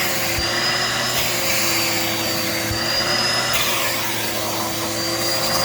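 Dirt Devil Multi-Surface vacuum cleaner running steadily: a constant high motor whine over a rushing hiss that swells and eases a few times.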